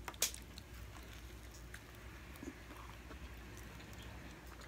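A person quietly chewing a mouthful of sprinkle-topped doughnut, with faint wet mouth clicks and one sharper click just after the start.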